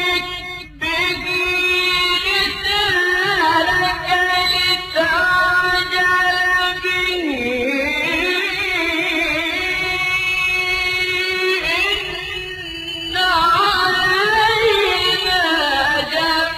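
Quran recitation in melodic tajweed style: a single voice chanting verses, drawing out long wavering notes, with a short breath about half a second in.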